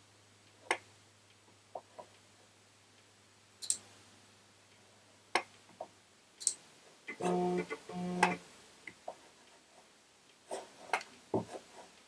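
Apple IIgs 3.5-inch floppy drive working as the system finishes booting: scattered sharp clicks and ticks, a faint steady hum that stops about halfway, then two short buzzing tones one right after the other.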